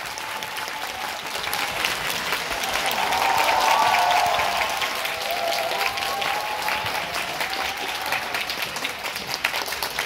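A large audience applauding in a cinema hall, dense clapping that swells to its loudest a few seconds in and then carries on steadily.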